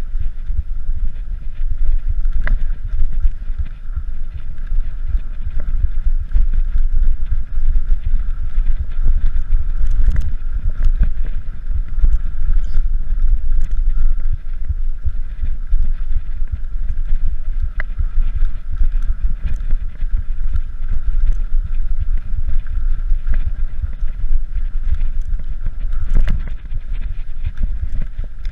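Mountain bike riding over bumpy bare rock, heard from a camera on the rider: heavy wind rumble on the microphone with scattered knocks and rattles as the bike goes over bumps.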